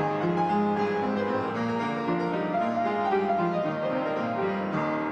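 Solo piano music, a melody over a moving accompaniment; a chord is struck near the end and left to ring.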